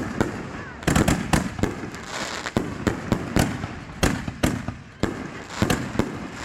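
Aerial fireworks going off in quick succession: about a dozen sharp booms, each trailing off, with crackle between them.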